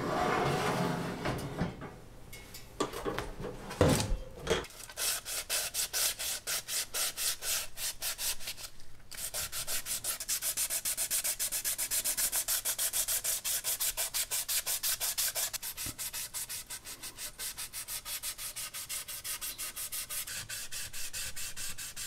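Hand wet-sanding of a powder-coated tin toy car body with wet sandpaper: quick, even back-and-forth rasping strokes, about four a second, with a short pause partway through. Near the start there are a few knocks and rattles from the wire rack being handled.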